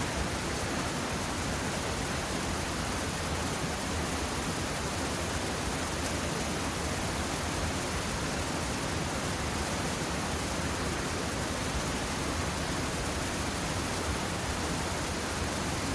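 Steady rush of a river flowing over rocks, an even hiss without change.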